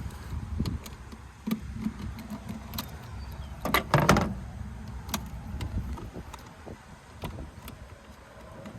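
Scattered clicks and knocks of hands and tools working on a riding mower, with a louder clatter about four seconds in, over a low rumble.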